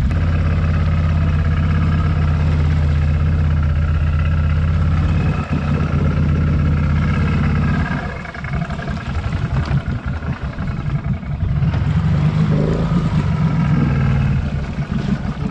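Quad bike (ATV) engine running at steady revs for about eight seconds, then with uneven, rising and falling revs.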